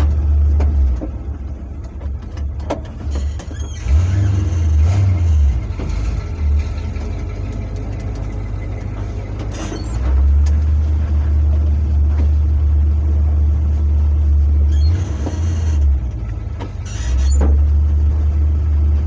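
Truck driving at low speed and pulling in to stop, heard from inside the cab: a heavy low rumble that comes and goes, loudest for several seconds in the middle and again near the end.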